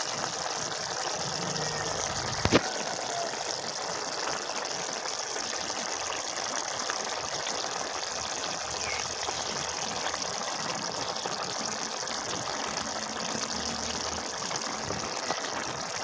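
Fish curry gravy simmering in a steel pan, a steady bubbling hiss, with one sharp knock about two and a half seconds in.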